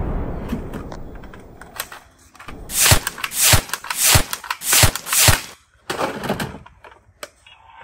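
The rumbling tail of an explosion dies away, then six loud hissing bursts come about half a second apart, followed by a few clicks and knocks.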